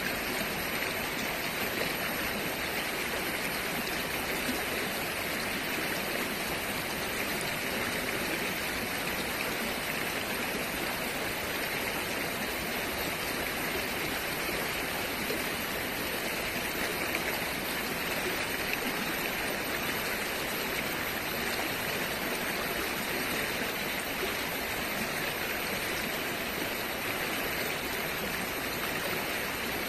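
A river flowing and rippling over rocks, a steady rushing of water.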